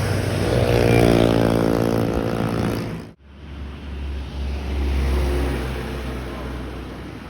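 Intercity bus engine running, its pitch falling over a couple of seconds as it passes or slows. About three seconds in the sound cuts off suddenly, and a low steady rumble follows.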